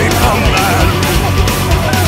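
Loud, heavy rock-style background music with a driving beat.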